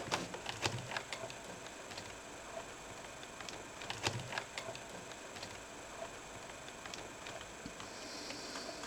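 Clicks, taps and light knocks of small hard laptop parts being handled, in a cluster at the start and another about four seconds in, with scattered ticks between.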